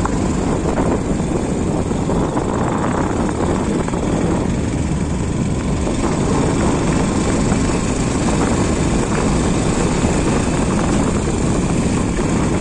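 Wind buffeting the microphone on a moving motorcycle, a steady loud rumble, with the motorcycle's engine running underneath.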